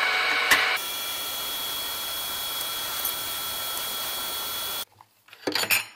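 ZX7045 mill-drill running with its spindle and end mill turning: a steady high whine over a hiss, with one sharp click about half a second in. It stops suddenly about a second before the end.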